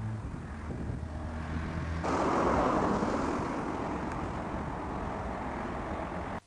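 Street ambience with a steady low vehicle engine hum and road noise. About two seconds in, a louder rush of noise swells up suddenly and fades over the next two seconds.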